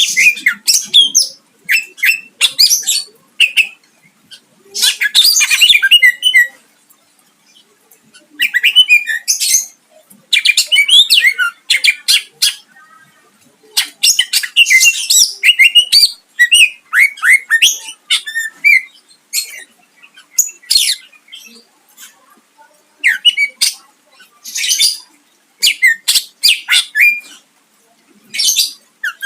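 Cucak ijo (greater green leafbird) singing loudly in rapid, varied bouts of sharp whistles, trills and chattering notes, with short pauses between phrases. The song is packed with phrases mimicked from other birds.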